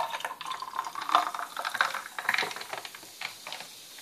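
Fizzy mineral water poured into a glass over ice and a red syrup mix, splashing and crackling with many small pops as it foams. The sound thins out about three seconds in.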